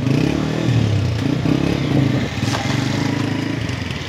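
Small motorcycle engine running steadily at low speed.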